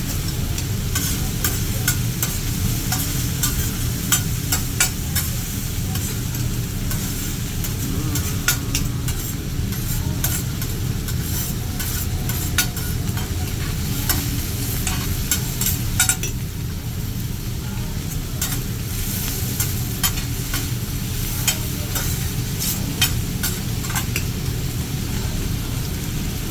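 Food sizzling on a teppanyaki griddle, with frequent sharp clicks and scrapes of metal spatulas against the hot steel plate, over a steady low hum.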